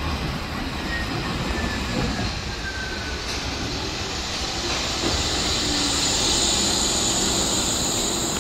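Wuppertal Schwebebahn Generation 15 suspended monorail car running on its overhead steel rail as it pulls into a station. It makes a steady rolling rumble with a high hiss, and both grow louder from about halfway through as the car draws alongside the platform.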